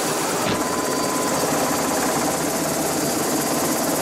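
Helicopter running on the ground, heard from inside the cabin: a loud, steady engine and rotor noise with a few faint, steady high tones. There is a single light click about half a second in.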